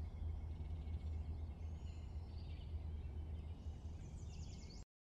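Low steady hum with faint high bird-like chirps and a short trill near the end, cutting off abruptly just before the end.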